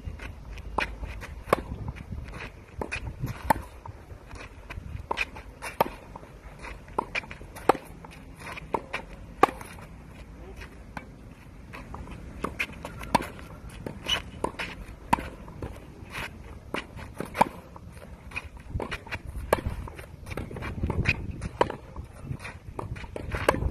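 Tennis rally on a clay court: a series of sharp pops as the ball is struck by racket strings and bounces on the court, with the players' footsteps on the clay.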